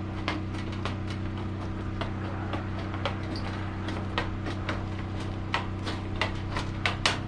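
Hammer driving nails into wood by hand: a run of quick, uneven blows, about three a second, with the hardest strikes near the end.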